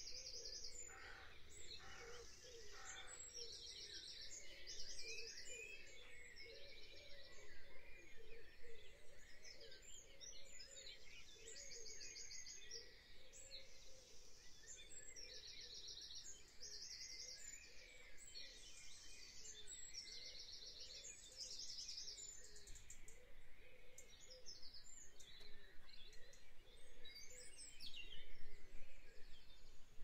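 Faint birdsong: a high, rapid trill repeated every second or two, with scattered chirps and a few sweeping whistles, over a low steady hiss. The calls grow a little louder near the end.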